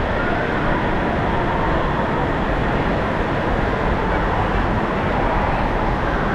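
Steady, echoing din of a large indoor water park hall: running and splashing water and many distant voices blended into one even noise.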